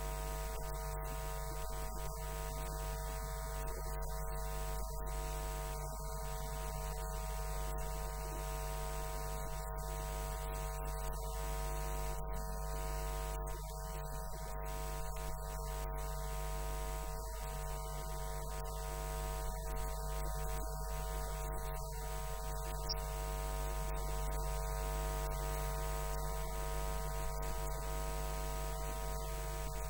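Steady electrical mains hum with a buzzy stack of overtones, unchanging throughout, with no speech heard.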